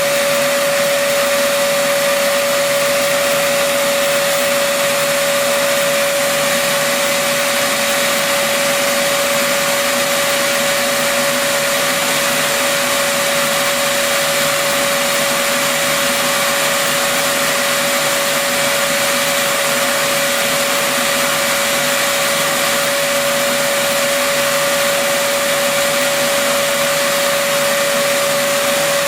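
Router spindle of a Shapeoko CNC machine running at a constant high speed: a loud, even motor whine with a single steady high tone.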